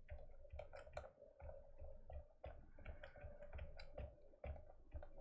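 Faint, quick, irregular clicking of computer keys being pressed, about four a second, as the edit is stepped through frame by frame, over a faint steady hum.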